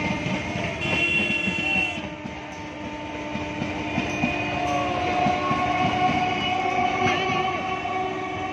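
EMU local train passing close by, its wheels clicking over the rail joints, with several steady tones held above the running noise.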